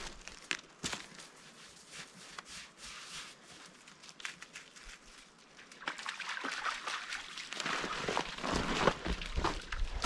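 Footsteps through woodland brush, with scattered crackles and snaps of twigs underfoot; sparse at first, then denser and louder from about six seconds in.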